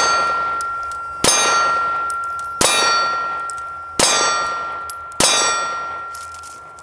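Glock 19 9mm pistol shots striking a steel plate, four shots a little over a second apart, each followed by the plate ringing at one steady pitch that fades slowly until the next hit. At the start the plate is still ringing from a hit just before.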